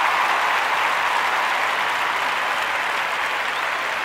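Applause from a crowd, a dense steady clatter of many hands clapping that slowly fades.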